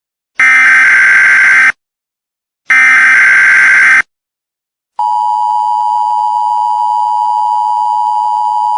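Emergency Alert System header: two one-second bursts of screechy digital data tones with a short silence between them, then, about five seconds in, the steady EAS attention tone sounds.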